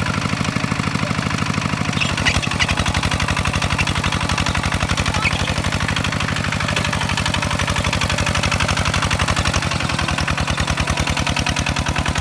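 Kubota walk-behind two-wheel tractor's single-cylinder diesel engine running steadily with an even beat, working under load as it drags steel cage wheels and a harrow through paddy mud.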